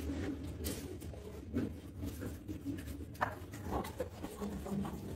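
Scattered light knocks and splashes as water is poured from a plastic scoop and plastic basins are handled on a tiled floor.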